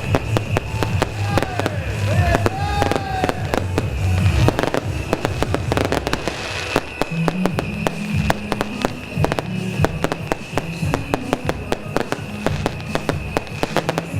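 Beehive firecracker rack of bottle rockets going off: a dense, rapid crackle of bangs, with a few rockets whistling in the first seconds. Music plays underneath.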